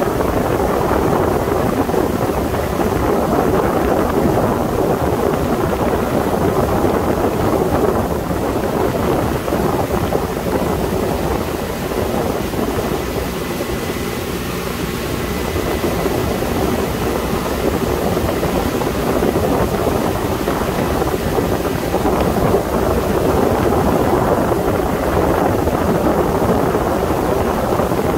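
A Sea Ray 21 motorboat underway at speed: a steady rush of wind on the microphone mixed with the boat's engine and water along the hull. It dips slightly in level for a few seconds midway.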